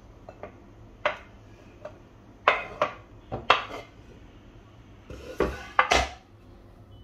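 A plastic spatula knocking and scraping on a wooden cutting board while chopped chocolate is pushed off it into a glass bowl: a string of sharp knocks and clinks, then a longer, fuller clatter near the end.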